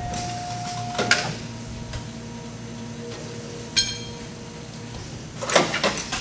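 Atlanta 3200P automatic mattress border workstation running: a steady machine hum, with a sharp clack about a second in, a short ringing metallic tick near four seconds, and a cluster of clattering knocks near the end.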